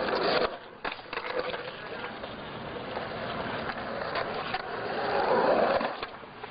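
Skateboard wheels rolling on asphalt, with a few sharp clacks of the board; the rolling grows louder about five seconds in.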